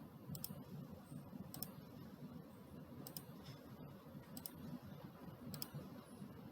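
Faint computer mouse clicks, five of them about a second and a half apart, each a quick press-and-release, over a low steady hum.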